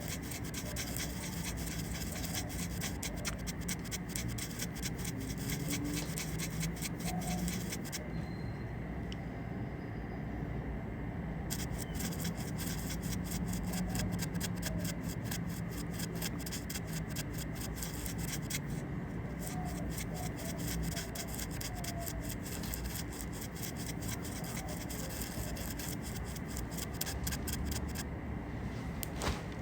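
Makeup brushes rubbing and scratching in rapid, dense strokes, with a few brief pauses.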